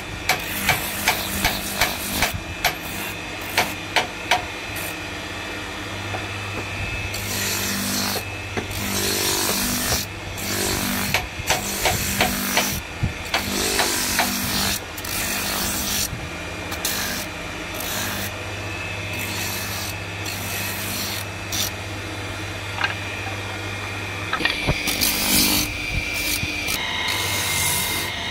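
Electric motor spinning a sanding drum, with a wooden spatula pressed against the abrasive sleeve in repeated strokes: a rasping, grinding rush over a steady motor hum. Sharp knocks come in the first few seconds, and the hum changes pitch near the end.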